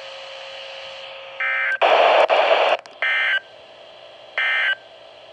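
Emergency Alert System end-of-message data bursts on a NOAA Weather Radio broadcast: three short, buzzy digital chirps about a second and a half apart, marking the end of the warning. A one-second burst of loud static follows the first chirp.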